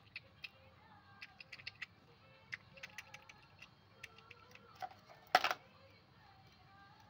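A small dog biting and gnawing at a clear plastic container, giving irregular sharp plastic clicks and cracks, with one louder crunch about five and a half seconds in.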